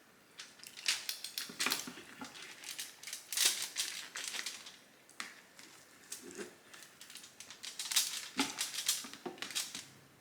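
Close-up mouth sounds of someone eating: irregular wet chewing and lip smacking, in clusters of quick clicks with brief pauses between.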